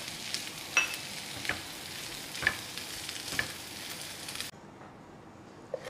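Spinach, mushrooms and olives sizzling in butter in a nonstick frying pan, with a silicone spatula scraping and tapping through them about once a second. The sizzling cuts off suddenly near the end.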